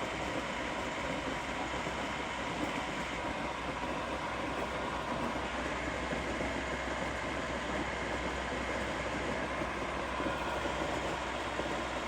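Novisa radial arm drill running with its spindle moving down on power feed: a steady machine whir from the motor and gearbox, with a low hum underneath.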